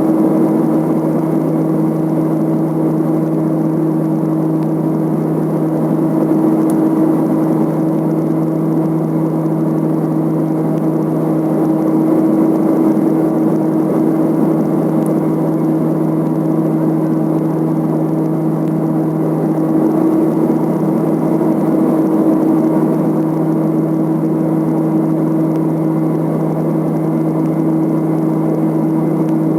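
Let L-410's twin turboprop engines and propellers running at a steady drone. The hum holds two steady tones over a broad rush of noise and barely changes throughout.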